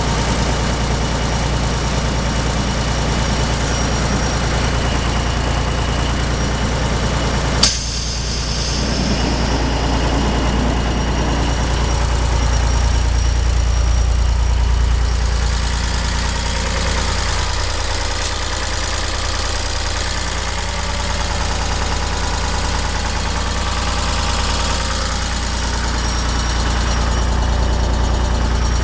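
Unimog 406's diesel engine idling steadily, with one sharp click about eight seconds in.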